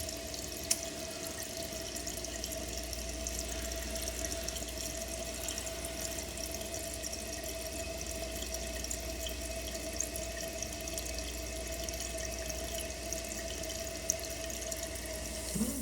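Toilet tank refilling through a newly installed fill valve: a steady rush of water into the tank with a steady mid-pitched hum from the valve, and an occasional faint drip.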